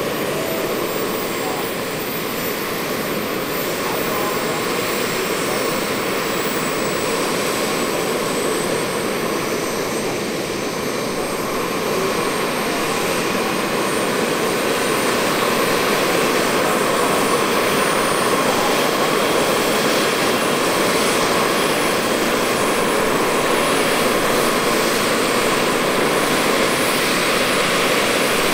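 Small gas-turbine engines of several large RC scale helicopters running on the ground, a high steady turbine whine over the rush of their spinning rotors. One whine rises in pitch about a second in, and the sound grows a little louder around the middle.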